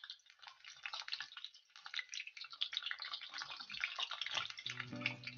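Cabbage pakoras deep-frying in hot oil in an iron kadhai: a dense, irregular sizzling crackle that thickens in the first second and keeps going. Background music comes in near the end.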